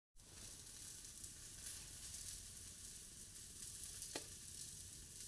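Faint, steady sizzle of eggplant slices frying in oil on a tawa, with one brief faint tick about four seconds in.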